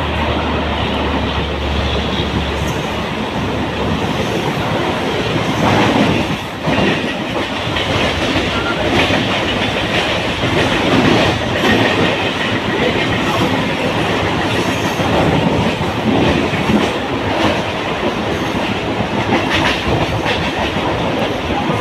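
Suburban electric local train running at speed, heard from its open doorway: a steady rushing rumble of wheels on rail with frequent irregular clickety-clack over rail joints and points. A low hum in the first few seconds stops as another local train passes close alongside.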